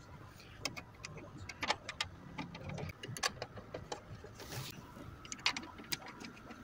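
Light, irregular metallic clicks and taps from hand work on a car seat's metal rail, a nut being threaded by hand onto a seat-mounting bolt, with a short rustle about four and a half seconds in.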